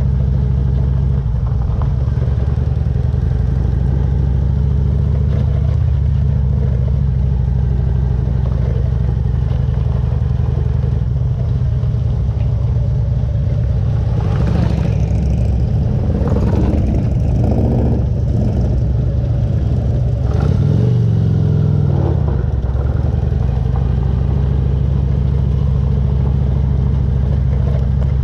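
Harley-Davidson touring motorcycle's V-twin engine running steadily while climbing a dirt road hill, with clattering in the middle and a brief change in engine pitch a few seconds later.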